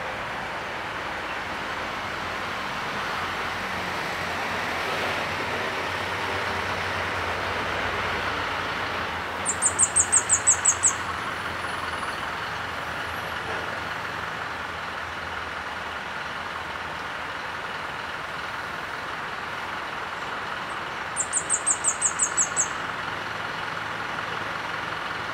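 Orange-bellied flowerpecker calling: two quick series of about ten thin, very high-pitched notes, each series lasting just over a second, the first about ten seconds in and the second, slightly softer, about twenty-one seconds in. A steady background hiss runs underneath.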